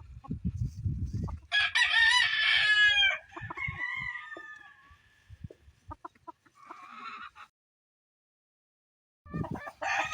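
A rooster crowing loudly, one long crow that trails off, followed by a short call; another crow starts near the end.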